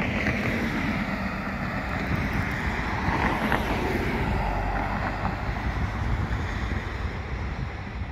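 Outdoor street noise: a steady rush of road traffic mixed with wind buffeting the microphone.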